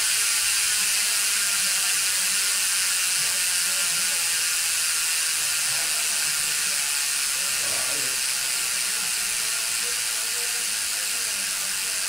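Crimson Boost six-pawl rear hub freewheeling as the rear wheel spins: a fast, continuous freehub buzz of pawl clicks that slowly fades as the wheel loses speed.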